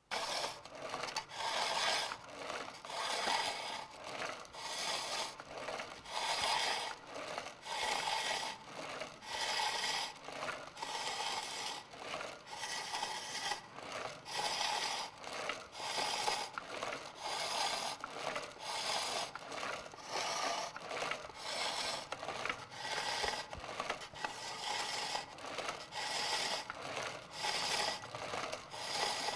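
Carving knife scraping the rough dried lacquer off a bamboo vessel as it turns on a pole-and-string lathe, smoothing its surface. The scraping comes in even, regular strokes, about two a second.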